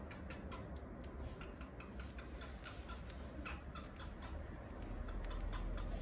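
Cockatiel husking millet seeds off a millet spray with its beak: quick, irregular little clicks and cracks, several a second.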